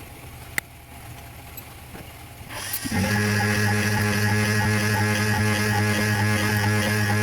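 A machine's electric motor starts about two and a half seconds in, then runs steadily with a loud hum and a higher whine, likely part of the CNC milling setup.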